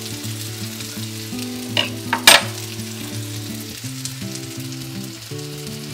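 Pumpkin pieces frying in ghee and masala in a kadai, a steady sizzle, with a couple of short sharp knocks about two seconds in.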